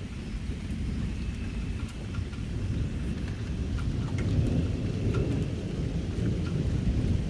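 Thunder rumbling, building up toward the middle and again near the end, over steady rain with scattered drop ticks.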